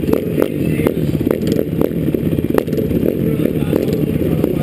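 Several dirt-track motorcycle engines idling together on the start line, the nearest one loud and close, with scattered light clicks over the top.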